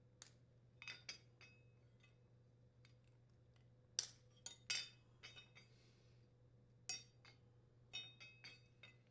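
A run of sharp clicks and light metallic clinks as the bushing and bumper are worked off one Samsung dishwasher door hinge and snapped onto the replacement hinge. The loudest clicks come about four seconds in.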